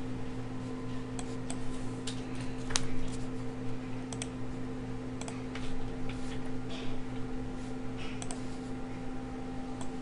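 Irregular, scattered clicks of a computer mouse and keyboard under a steady low hum.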